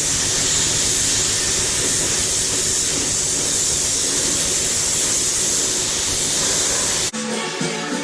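Loud, steady hiss of a spray or blasting tool at work, with a low rumble underneath. About seven seconds in it cuts off abruptly and rock-style music takes over.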